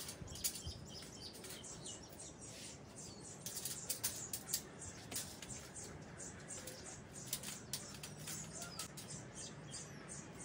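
Light metallic clicks and rattles of stainless steel rack parts being handled and seated in the frame, a quick cluster of sharper clicks about four seconds in.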